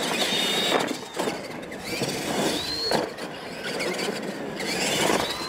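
Two R/C monster trucks racing off the line, their motors and gears whining in pitches that rise again and again as they speed up. A couple of sharp knocks come about a second in and again near three seconds.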